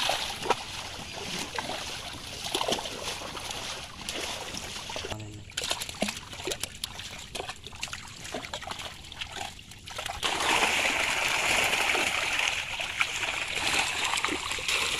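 Water splashing and dripping as fish thrash in a seine net pulled through shallow pond water, with scattered sharp slaps; the splashing becomes louder and denser about ten seconds in.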